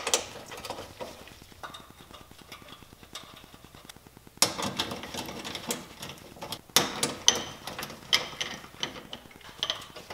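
Hand ratchet clicking as the screws holding a car's plastic airbox are run down, faint at first and then in quick runs from about four seconds in, with a few sharper clicks and knocks of tool on plastic.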